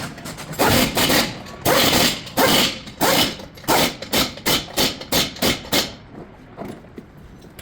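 Hammer blows on a car's steering parts during an outer tie rod end replacement: about fifteen sharp strikes, coming faster in the second half and stopping about six seconds in.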